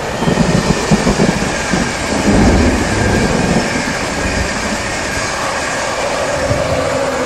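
InterCity 225 electric express train (Mark 4 coaches hauled by a Class 91 locomotive) passing close at speed: a loud rush of wheels on the rails with uneven knocks over the first few seconds. A faint whine falls in pitch near the end as the locomotive at the rear goes by.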